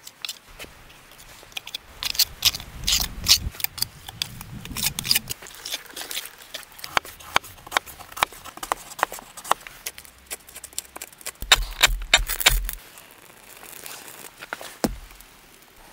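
A run of sharp taps, scrapes and knocks from hand work: bricks being set in mortar, then a knife splitting and shaving a stick of pallet wood for kindling. A few heavy knocks come about twelve seconds in.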